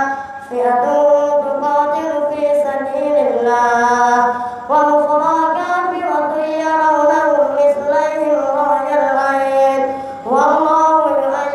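A boy's high voice chanting Quran recitation to lead congregational prayer. He holds long, ornamented notes and glides between pitches. He breaks briefly at the start, then again about ten seconds in before starting a new phrase.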